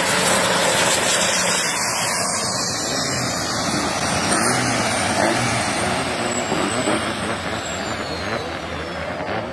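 Turbocharged diesel engines of two Thai long-tail racing boats running flat out as they race past, a loud, dense roar mixed with the rush of spray, with a faint high whine falling in pitch in the second half.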